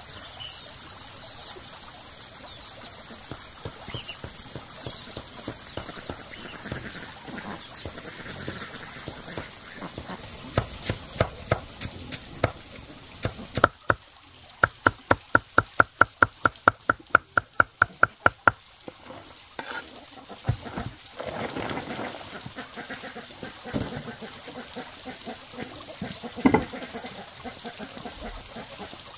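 Cleaver chopping a pile of leafy greens on a tarp laid on the ground: a few scattered chops, then a fast, even run of about five strokes a second lasting about four seconds in the middle.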